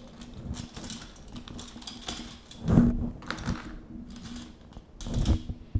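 Handling noise on a worktable: scattered light taps and paper rustles, with two louder thumps, one about three seconds in and one near the end.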